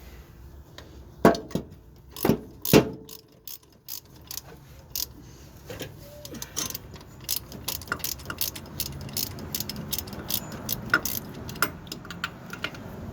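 Hand ratchet wrench clicking in repeated short strokes, several clicks a second, as it backs out a tight alternator mounting bolt. A few louder metal clanks come in the first three seconds.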